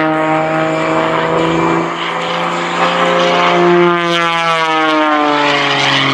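Extra 300SHP aerobatic plane's piston engine and propeller running hard through a tumbling maneuver, the engine note wavering in pitch and dropping about five seconds in.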